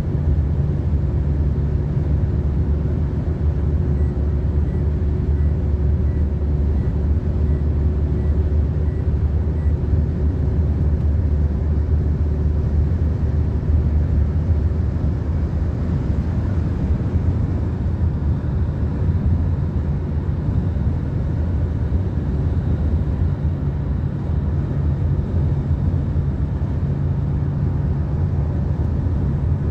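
Steady low drone of engine and tyre noise heard from inside a moving car's cabin at highway speed.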